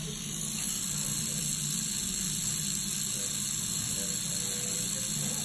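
Tattoo machine running with a steady low buzz while filling in colour on skin.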